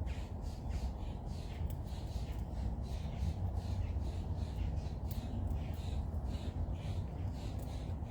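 A flock of birds calling over and over, short harsh squawks about two a second, over a steady low rumble.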